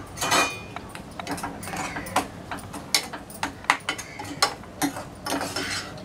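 Steel spoon stirring a thick mixture of crushed lemon, melted sugar and chilli powder in a dark metal pan, with repeated clinks and scrapes of the spoon against the pan.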